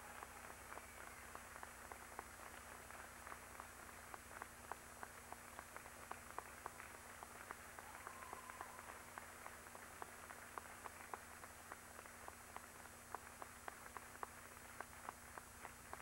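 Audience applauding, faint and thin, with separate claps heard several times a second, over a low steady hum on the recording.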